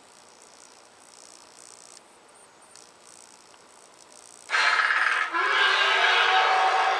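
A loud rattling trill that starts suddenly about halfway through, after several seconds of faint hiss. It dips briefly once and then carries on.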